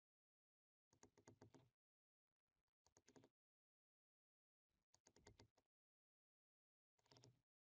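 Near silence broken by four very faint, short bursts of rapid clicking, each under a second long.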